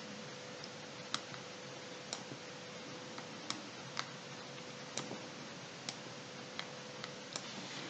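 Faint computer mouse clicks, about ten of them at irregular intervals, over a low steady hiss and faint hum.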